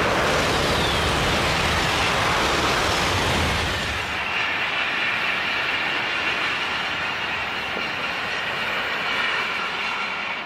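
A double-deck TGV high-speed train rushing past close by: a loud, dense rush of air and wheels on rail. About four seconds in it changes to a second high-speed train running by farther off, a steadier, thinner rush with a faint high whine.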